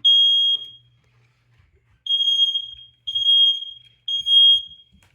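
Household smoke alarm sounding its piercing high-pitched temporal-three pattern. One half-second beep comes at the start, then a pause of about a second and a half, then three half-second beeps about a second apart. It is going off again after being set off with smoke from burning paper in a functional test.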